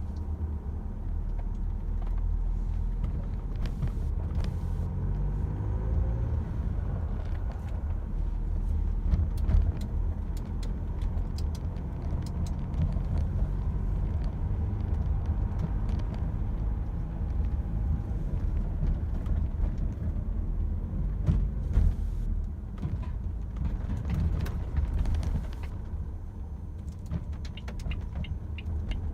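Renault Espace IV engine running cold, heard from inside the cabin: a steady low rumble with scattered clicks and a run of quick ticks near the end. This is the cold-engine cabin noise the owner is sharing to compare with another Espace.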